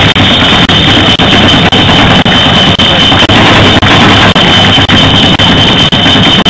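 Several drums beaten with sticks, played loud enough to overload the recording into a dense distorted din, with a regular beat about twice a second and a steady high tone over it.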